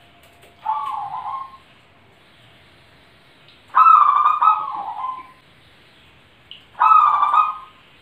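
Zebra dove (perkutut) cooing three times, each call a rolling coo of about a second; the middle call is the longest and loudest.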